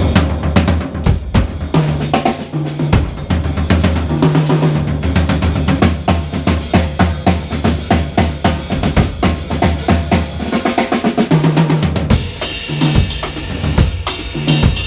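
Live jazz quartet: a drum kit plays a busy pattern of snare, bass drum and cymbal strokes over sustained bass notes. About twelve seconds in, the drumming thins out and higher held notes come in.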